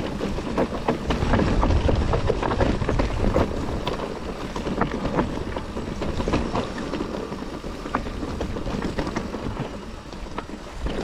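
Mountain bike riding down a rocky trail: the tyres run over stones under a steady low rumble, with a constant scatter of clicks and knocks from the bike rattling over the rough ground.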